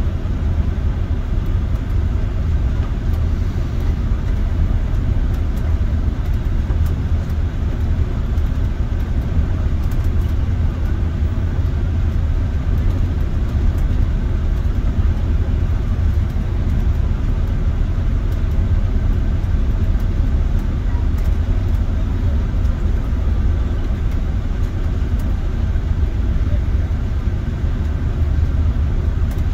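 Steady low rumble of a bus driving: engine and road noise, even throughout.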